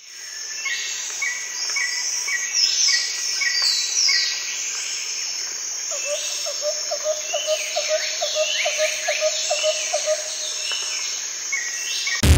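Chorus of chirping insects and calling birds: a steady high insect shrill under repeated short chirps and sweeping, falling whistled calls, with a quick run of lower notes from about six to ten seconds in. It fades in at the start and stops abruptly near the end.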